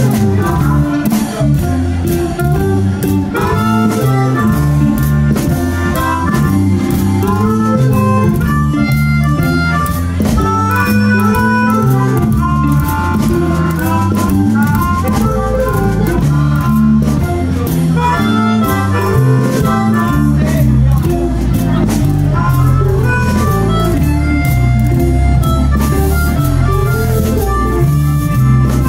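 Live blues band playing a slow blues, with drums, bass and guitar under a sustained saxophone lead line.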